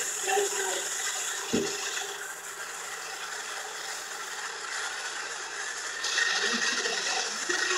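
Jet airliner's turbofan engine heard from the cabin over the wing: a steady rushing hiss that grows louder about six seconds in.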